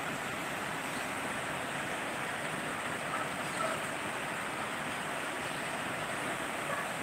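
Heavy tropical-storm rain falling steadily, an even hiss with no breaks.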